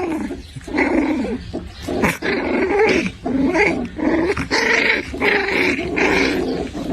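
A dog vocalizing in a long run of drawn-out, growl-like grumbles, one after another, with the pitch wavering up and down within each.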